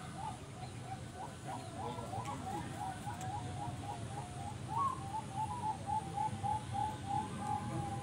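Young zebra doves (perkutut) cooing from hanging cages: a run of short, repeated coo notes at about three a second, with a higher, louder note near the middle.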